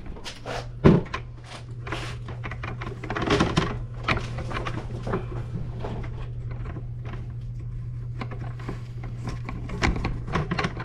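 Scattered knocks and clatter, the sharpest about a second in, over a steady low hum.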